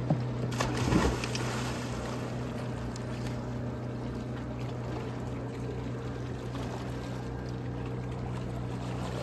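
Motorboat engine running at a steady drone, with a few knocks about a second in.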